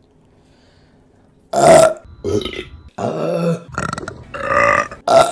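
Women burping loudly, five or six burps in quick succession starting about a second and a half in, after a faint hum.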